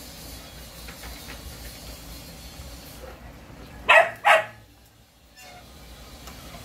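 A dog barks twice in quick succession about four seconds in. Before that there is only faint handling noise from plastic fan parts being fitted together.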